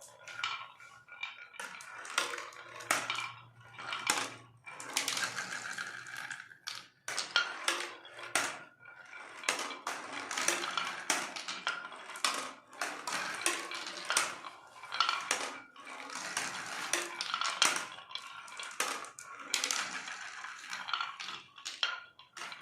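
Marbles rolling and clattering along a wooden marble run, a dense, continuous run of clicks and knocks with brief lulls.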